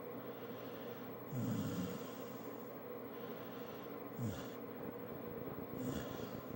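Snoring: three snoring breaths, the longest about a second in and two shorter ones near four and six seconds, with quieter breathing between.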